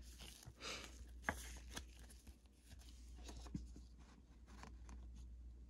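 Faint rustling and a few light plastic clicks as a football card is slid into a rigid plastic top loader and set down. A steady low hum runs underneath.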